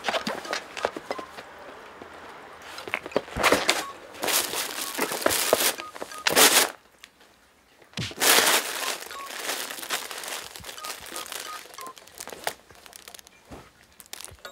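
Cats scuffling on tatami and the crinkly fabric of a cat play tunnel rustling, in several loud bursts of crinkling noise.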